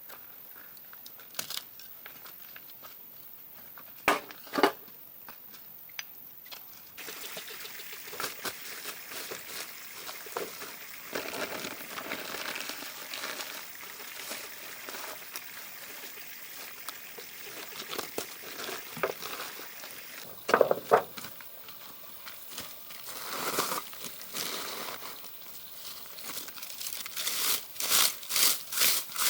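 Hand-work noises: two sharp knocks, then scattered scraping, rustling and clicks over a steady hiss, ending in a run of regular strokes about two or three a second.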